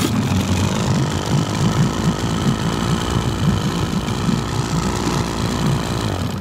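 Vikhr-30 two-stroke, two-cylinder outboard motor running steadily at idle, having caught on a single one-handed pull because it is already warm. It cuts off abruptly near the end.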